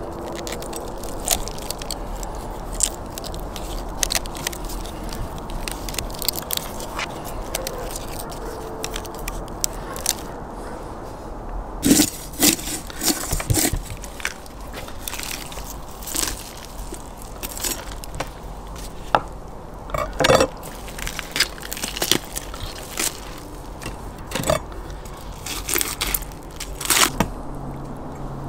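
A whole roasted lamb being carved with a knife on a wooden board: irregular crackling, scraping and tearing as the crisp roasted skin and meat are cut and pulled apart, with sharp cracks as joints give way. The loudest snaps come about twelve and twenty seconds in.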